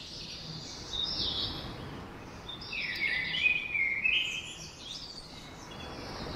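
Birds chirping, in short runs of high calls about a second in and again from about three to five seconds in, over a faint steady background hiss.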